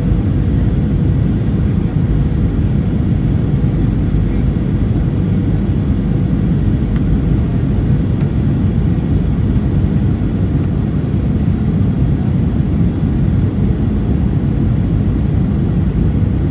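Boeing 737 cabin noise on approach: a steady low rumble of the jet engines and rushing air heard from inside the cabin, with a faint steady hum above it.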